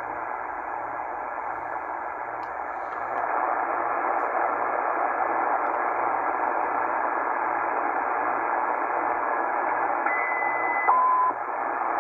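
Tecsun PL-990x shortwave receiver in lower sideband giving out a steady hiss of 80-metre band noise as it is tuned down the band; the noise grows louder about three seconds in. Near the end, a brief steady whistle that steps down to a lower pitch cuts through the hiss.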